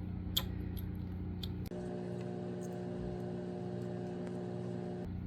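Steady electrical hum in a small room, with a few faint small clicks. The hum changes character abruptly about a second and a half in and changes back near the end.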